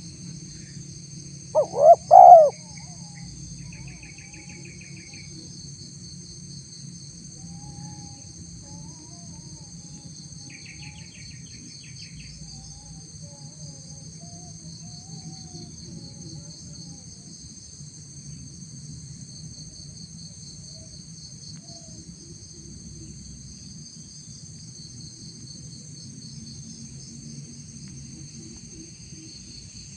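Spotted dove cooing a short phrase of about three notes, roughly two seconds in, the call used to lure wild spotted doves. Steady insect chirring runs throughout, with faint chirps from other small birds.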